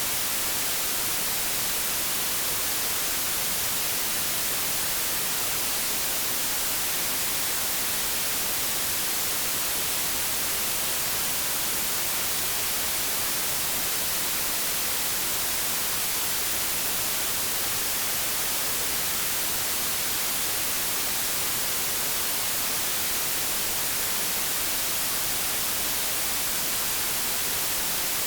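Steady white-noise static like an untuned TV or radio: an even hiss, strongest in the high end, that holds constant without change.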